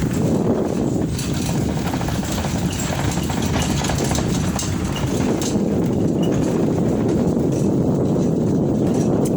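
Steady low wind rumble buffeting the microphone, with a few faint ticks over it.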